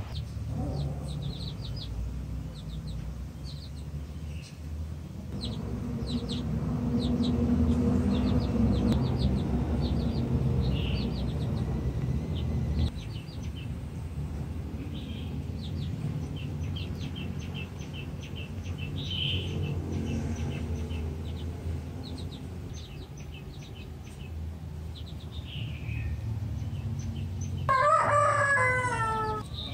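Small birds chirping in short repeated notes over a low steady background rumble that swells for a few seconds. Near the end a rooster crows once, its call falling in pitch; it is the loudest sound.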